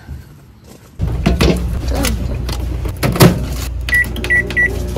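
Microwave oven running with a steady low hum, with a few clattering knocks of handling. Near the end it gives three short beeps, signalling that the heating is done.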